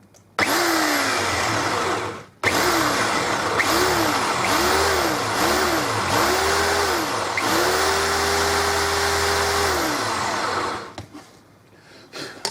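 Cordless drill driver with a half-inch bit boring into a wooden board. The trigger is squeezed in a string of short bursts, the motor whining up and down in pitch each time, then held for about two and a half seconds before it winds down.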